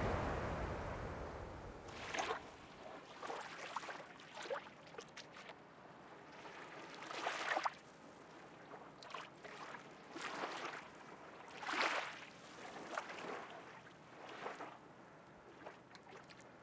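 A wave wash fading out, then small water splashes and sloshes, irregular, about one every second or so, some louder than others, as of water lapping or being stirred.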